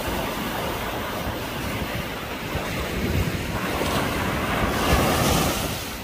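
Surf breaking and washing up a sandy beach, swelling to a louder wash about five seconds in, with wind buffeting the microphone.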